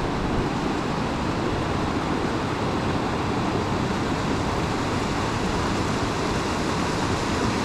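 Fast river current rushing steadily, an even wash of water noise with no breaks.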